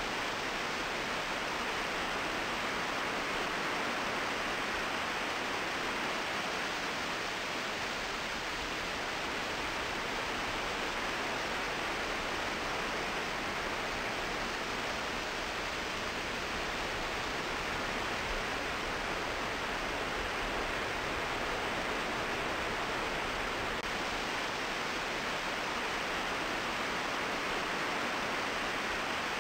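Steady, even hiss with no separate sounds standing out of it.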